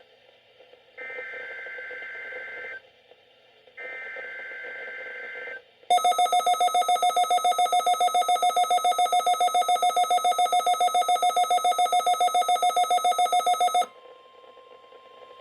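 Two bursts of the warbling digital SAME header data of a NOAA Weather Radio required weekly test. A weather-radio receiver's own electronic alarm then beeps loudly and rapidly for about eight seconds, triggered by the decoded header, and cuts off sharply. A faint steady alert tone follows briefly near the end.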